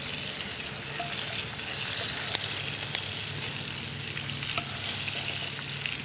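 Bacon frying in a pan over a wood fire: a steady sizzle with a few sharp pops.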